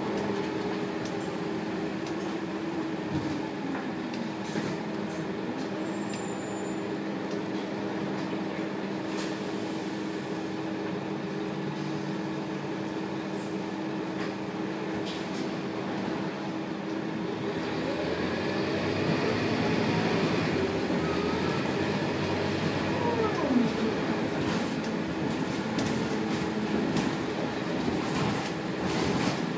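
Scania K280UB bus's 9.3-litre five-cylinder diesel heard from inside the cabin: idling with a steady hum, then pulling away about two-thirds through, its note rising and dropping back as the ZF Ecomat automatic gearbox shifts up. Loose fittings click and rattle.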